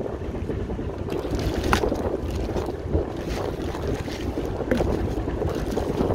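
Steady low rumble of a small fishing boat with wind buffeting the microphone, under scattered wet clicks and rustling from a heap of freshly caught anchovies and shrimp being stirred on deck.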